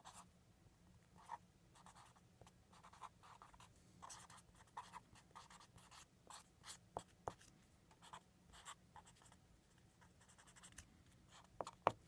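Pen scratching on paper in quick, short strokes as a signature is written, faint throughout. Two sharp clicks near the end.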